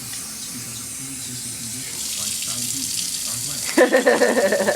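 Water running steadily from a tap into a sink, a little louder about halfway through, with a short pitched voice-like sound near the end.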